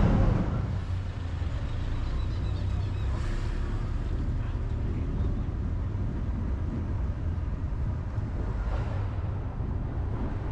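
Steady low outdoor rumble with no distinct events standing out.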